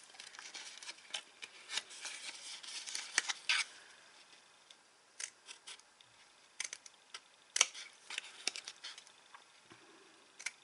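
Small craft scissors snipping white cardstock: irregular runs of short, sharp snips with a lull in the middle, as the corners of the card flaps are cut off at an angle.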